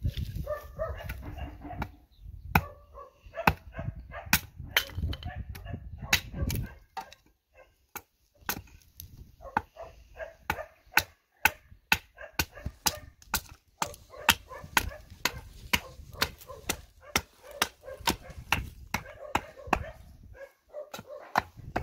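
Hand axe chopping the edge of a scrap wooden board held upright: a long run of sharp wooden blows, about two a second, starting a couple of seconds in, with a short pause about a third of the way through.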